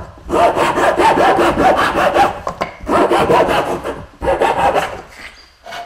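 A short length of dry cane rubbed hard back and forth against the wooden workbench in quick strokes, about five a second, giving a rasping, sawing scrape with a hollow ring. It comes in three runs with two brief pauses.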